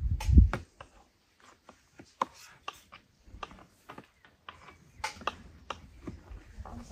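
Knife cutting fruit on a cutting board: irregular sharp clicks and taps, a few per second. A brief low rumble comes right at the start.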